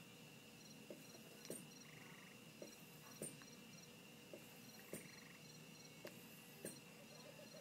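Near silence filled by faint bedside medical equipment: a steady high whine, short quiet repeating beeps, and a soft click roughly every second and a half to two seconds.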